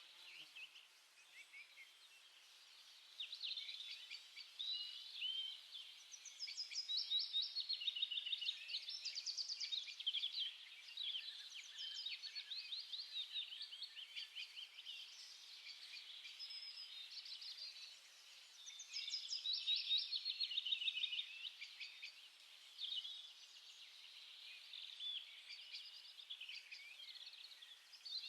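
Many small songbirds chirping and twittering at once in quick, overlapping high calls, with louder flurries from about three to eleven seconds in and again around eighteen to twenty-two seconds.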